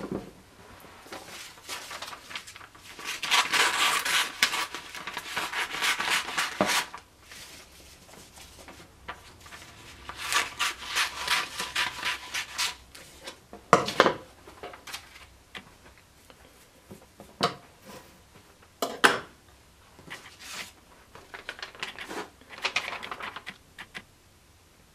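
Paper templates being cut with scissors and handled on a plywood tabletop: several stretches of rustling and snipping, with a few single sharp knocks on the wood in between.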